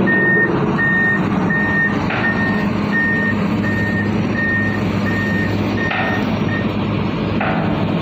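Heavy machine's motion alarm beeping, one short high beep about every 0.7 seconds, stopping shortly before the end, over the steady hum of the excavator's diesel engine running. A few faint knocks come through.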